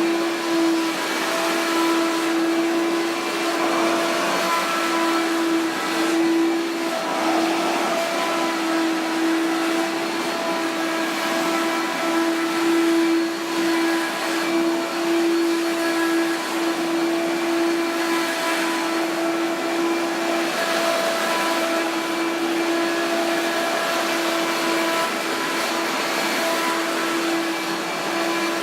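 Hoover Power Max vacuum cleaner running steadily at normal speed, its motor giving one even, unchanging hum.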